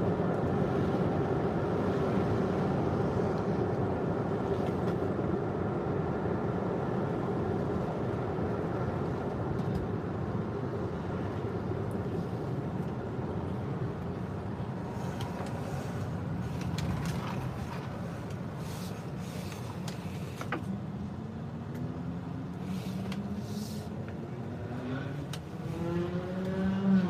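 Steady engine and tyre noise heard from inside a moving car. Near the end the engine pitch rises.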